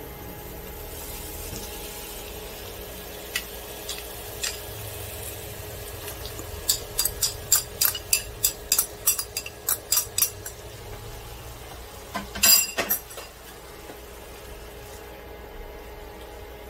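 Squid and vegetables sizzling in a nonstick frying pan. A quick run of sharp clinks, about four a second, as sauce is added from a bowl, then a louder clatter of utensil on dish about 12 seconds in.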